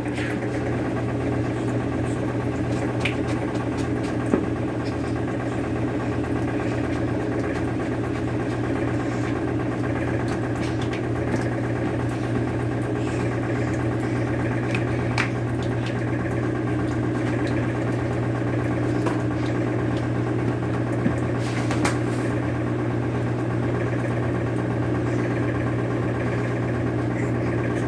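Samsung front-loading washing machine in its high spin cycle, a steady hum with light vibration. It stays in place instead of walking across the floor, as the anti-walking fix holds.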